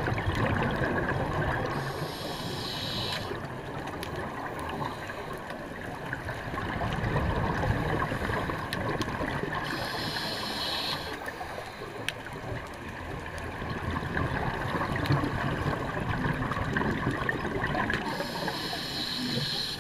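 Scuba diver breathing through a regulator underwater: three hissing breaths about eight seconds apart over a steady low rumble of water and bubbles.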